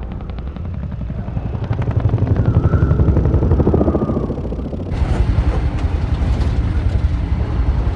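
Military helicopter in flight: a fast, even beat of rotor blades over a low engine drone, with a brief whine in the middle. About five seconds in, the sound changes suddenly to the steadier, hissier rumble heard inside the helicopter's cabin.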